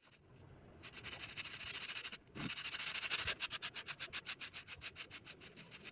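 A stiff stick broom sweeping a concrete floor: scratchy brushing that starts about a second in, breaks off briefly after two seconds, then goes on as fast, rhythmic short strokes.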